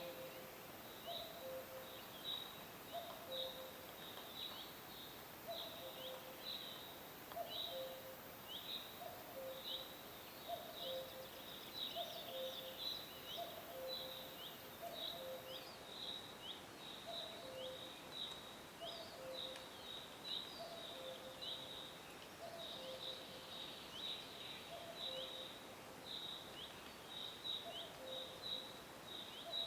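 Woodland birdsong. A cuckoo repeats its two-note falling "cuck-oo" call about every one and a half to two seconds, over a steady stream of short, high chirps from small songbirds.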